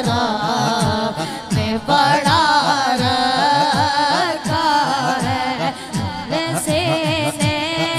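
A boy singing an Urdu naat into a microphone over the PA, in long, melismatic held lines. Under the voice runs a steady beat of low strokes, about two a second.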